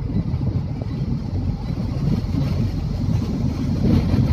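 Strong storm wind rushing and buffeting the microphone: a steady, uneven low rumble that grows a little louder near the end.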